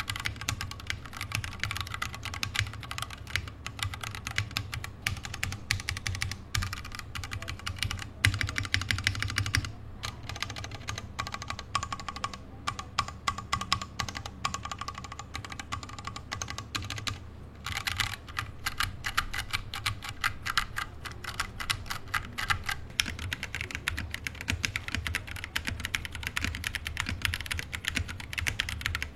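Typing test on a Daxa M64 60% tray-mount mechanical keyboard fitted with a polycarbonate plate in an aluminium case: a steady run of fast keystrokes, with a couple of brief pauses.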